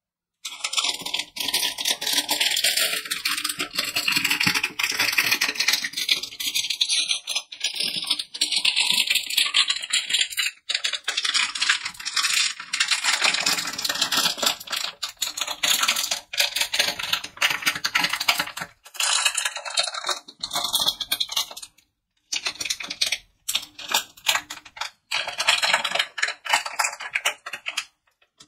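Foil-lined plastic candy wrapper crinkling and crackling as it is torn open and handled, in long runs broken by a few short pauses.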